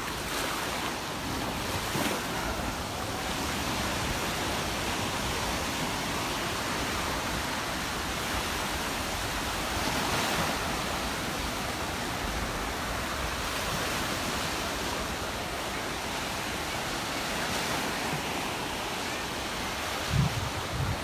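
Gulf of Mexico surf washing steadily onto the beach, with wind rumbling on the microphone. A couple of short low bumps come near the end.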